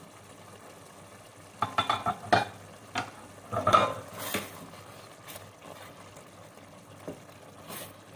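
A spoon stirring and scraping in a pot of minced-meat curry as yogurt and butter are mixed in: a quick run of clinks and scrapes in the first half, then a few single taps, over a soft sizzle from the pot.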